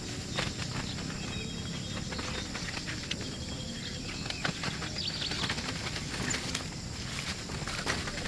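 Outdoor ambience: a steady low hiss with scattered light clicks, taps and rustles, and a few faint thin high calls.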